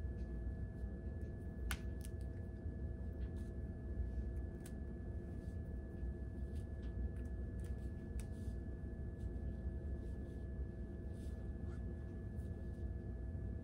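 Steady low room hum with a faint, constant high tone, broken by a few faint, scattered clicks and light rustles as the hair is handled.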